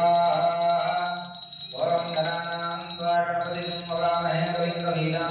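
A puja hand bell rung continuously, a steady high rapid ringing that breaks off briefly a little past the middle, under a voice singing a devotional chant during the camphor aarti.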